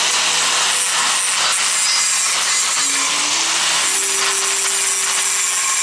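Electric angle grinder with a grinding disc held against a weld bead on steel square tubing, grinding the weld down: a loud, steady grinding hiss with a faint motor whine under it.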